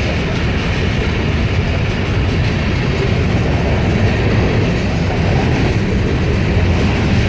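Empty grain train rolling past, a steady rumble of steel wheels on the rails.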